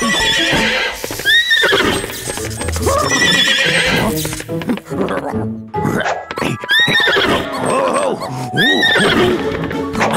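Cartoon background music with sound effects, including several short squeals that rise and then fall in pitch.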